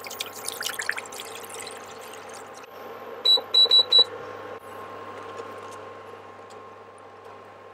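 Water poured from a large plastic bottle splashing into a nonstick frying pan for about a second and a half. About three seconds in, an electric cooktop's control panel gives four short high beeps in quick succession as it is switched on and set.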